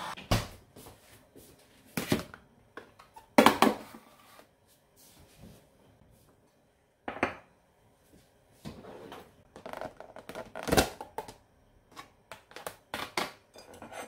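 Irregular knocks, taps and clatters of kitchenware handled on a countertop, with a metal grater, ceramic plates and plastic food-storage containers being set down and opened. Two clacks stand out, one about three and a half seconds in and a sharper one near eleven seconds, with a short scraping rustle around nine seconds.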